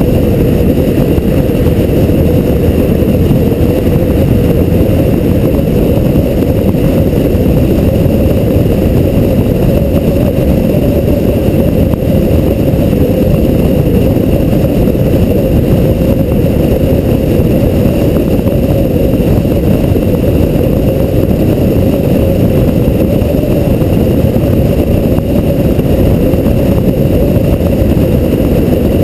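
Porsche 911 cruising at a steady speed, heard through a camera mounted on its front hood: a loud, even rush of wind buffeting and road noise with a steady low drone, no revving or gear changes.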